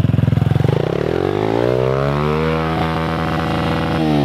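110cc mini dirt bike engine revved up from idle, held at steady high revs for about two seconds, then dropping back down near the end.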